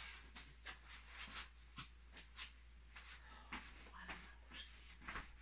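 Faint, irregular shuffling and rustling, about three soft brushes a second, from a person in a furry Bernese mountain dog mascot costume moving about and walking away.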